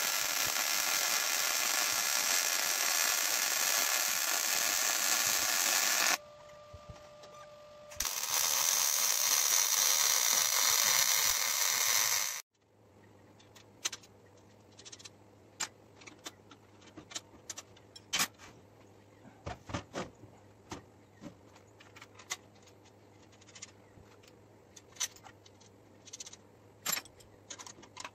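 MIG welding on quarter-inch steel plate: a steady crackling hiss from the arc, broken by a short pause about six seconds in, then resumed. About halfway it cuts off suddenly, giving way to scattered clicks and clinks of bolts, washers and a wrench as caster wheels are bolted onto a steel cart frame.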